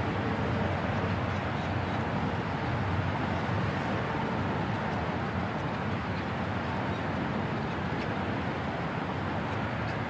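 Steady diesel engine noise from heavy construction machinery (excavators and dump trucks) at work, with a few faint knocks.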